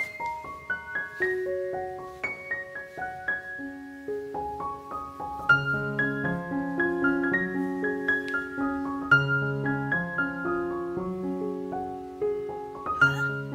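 Background piano music: a gentle melody of single notes, joined by a lower accompaniment about five seconds in.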